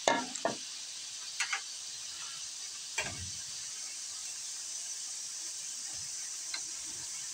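Steady high hiss, with a few light clicks and a sharper knock about three seconds in.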